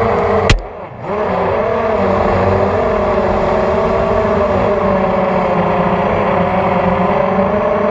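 Hexacopter's brushless motors and propellers whining steadily at speed, with several close pitches. About half a second in there is a sharp snap, as the craft clips a tree; the motors dip for about half a second, then spin back up and keep flying.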